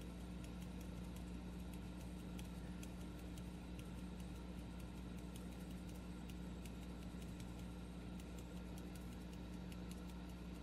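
Faint, irregular ticking of glitter grains sprinkled from a small shaker bottle onto paper, over a steady low electrical hum.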